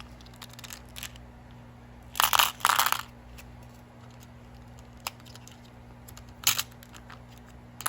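Stone beads clicking and rattling as they are handled: scattered light clicks, two short loud rattles a little over two seconds in, and another at about six and a half seconds.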